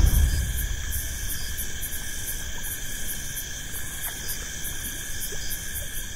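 Dusk chorus of crickets and other insects: several steady high trills layered together, with a sharper pulsing chirp about three times a second on top.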